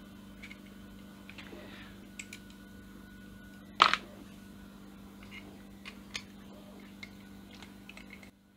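Small clicks and taps of a plastic clone BMG extruder and a hex key being handled during assembly, with one sharper clack about four seconds in, over a steady low hum.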